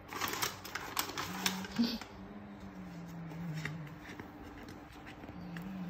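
Gift wrapping paper and a paper gift bag rustling and crinkling in quick bursts for about the first two seconds, then only occasional soft rustles.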